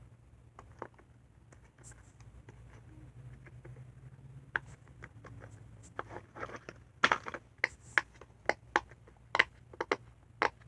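Silicone pop-it fidget toys being pressed, giving sharp popping clicks: a few scattered ones at first, then a quicker run of loud pops from about seven seconds in.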